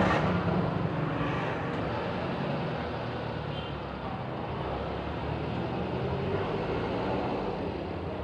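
Road traffic noise, with a motor vehicle engine running steadily and a bit louder at the start.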